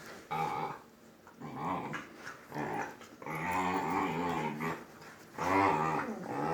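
A dog growling angrily in a run of about five wavering, pitched grumbles, the longest lasting about a second and a half in the middle.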